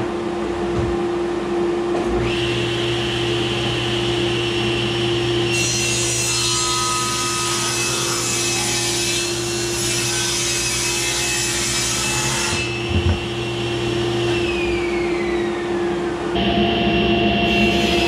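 Table saw running and cutting solid red oak stair treads on a slight bevel, its sound changing abruptly several times as cuts start and end.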